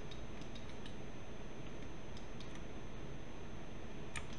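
A few faint, scattered clicks of a computer mouse and keyboard over a steady background hiss and hum, the clearest click near the end.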